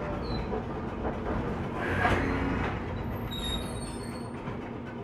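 1928 Canadian Car & Foundry streetcar rolling along the track, heard from inside the car: a steady rumble of wheels on the rails, swelling louder about two seconds in, with faint high wheel squeals near the middle.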